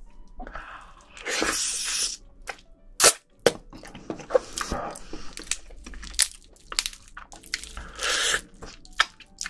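Eating spicy marinated raw swimming crab close to the microphones: long wet slurping and squishing as the sauced flesh is sucked from the shell, about a second in and again near the end, with sharp cracks and crunches of crab shell and chewing between them. The loudest is a single crack about three seconds in.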